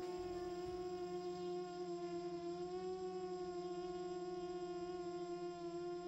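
Q330 quadcopter's electric motors and propellers humming in a hover, heard close up from the camera mounted on the drone: a steady, pitched hum whose pitch wavers slightly.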